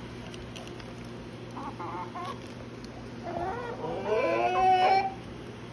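Chickens and a rooster calling in a pen: a few short clucks, then one long call of nearly two seconds about three seconds in, the loudest sound here.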